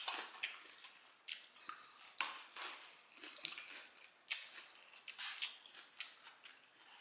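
Close-up chewing of crisp Caesar salad: irregular crunches, with one sharper click a little past halfway.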